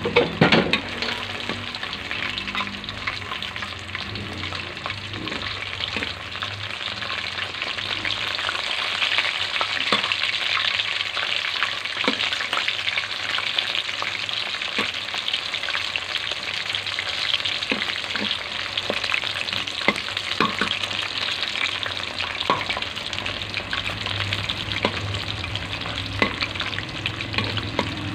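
Flour-coated chicken pieces deep-frying in hot oil in a steel wok: a steady sizzle with fine crackling throughout. There is a brief loud burst right at the start, and a metal spatula now and then taps and scrapes the wok as the pieces are stirred.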